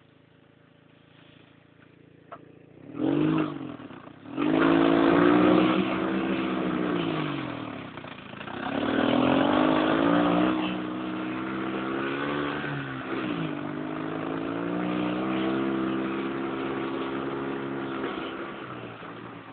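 Dune buggy engine, faint at first, then revving up hard about three seconds in as it pulls away. Its pitch rises and falls with the throttle, easing off around eight seconds before picking up again and running steadily under way.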